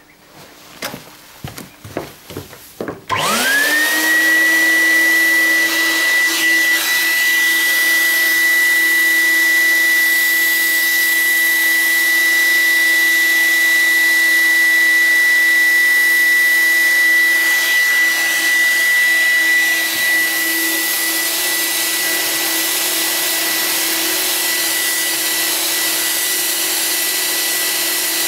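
A few handling knocks, then an electric insecticide nebulizer (cold fogger) starts about three seconds in, its motor spinning up fast to a steady high whine over a loud rush of air as it sprays a chemical mist to treat the room against scabies.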